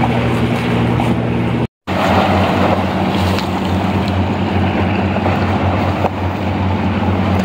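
Steady low engine hum, most likely a boat's motor, over wind on the microphone and sea water lapping. It breaks off for a moment about two seconds in and resumes a little lower in pitch.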